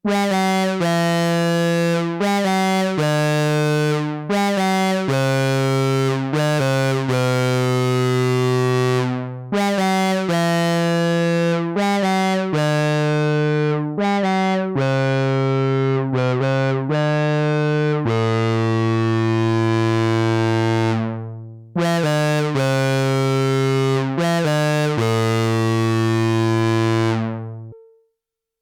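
Behringer Odyssey analog synthesizer, a clone of the ARP Odyssey, playing a slow phrase of held, buzzy, bright notes. It pauses briefly twice and fades out near the end.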